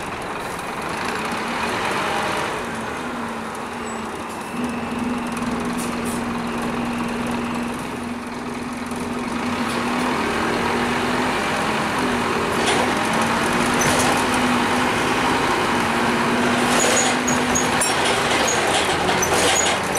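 Scania N230UD East Lancs Olympus double-decker bus under way, heard from inside the lower deck. Its five-cylinder Scania diesel and drivetrain give a steady low drone over road noise, which grows a little louder about halfway through.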